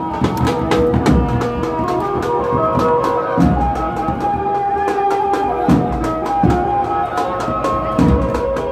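Band music with drums beating steadily under a melody of held notes, with a few heavy bass-drum thumps.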